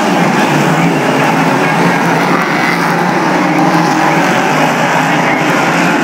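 Engines of a pack of speedway race cars racing around a dirt oval, many engines blending into one loud, steady drone.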